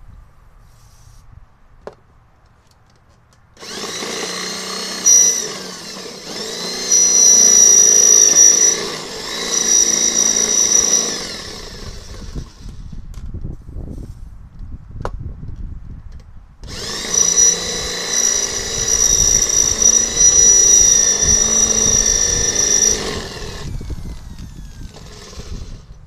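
Electric drill running in two long stretches of several seconds each, boring out a big hole, with a high steady motor whine.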